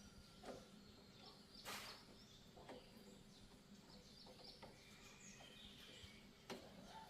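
Near silence, with faint bird chirps and a few soft clicks or taps.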